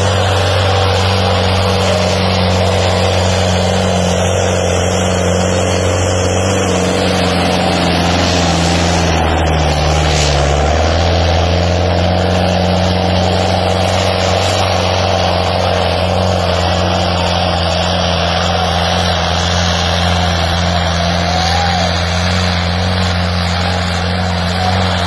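Tractor diesel engine running hard under heavy load, a steady, loud drone. Its note sags briefly about ten seconds in as the engine lugs down, then picks back up.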